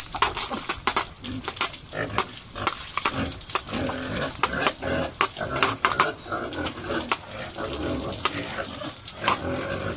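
Pigs grunting and squealing, with many irregular sharp clacks and knocks among them.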